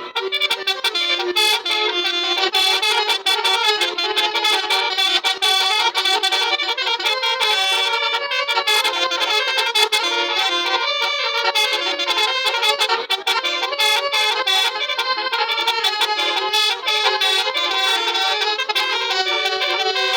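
Indonesian bus 'telolet' musical air horn of the basuri type playing a fast, continuous melody. Its many rapid notes are all mid and high pitched, with no bass.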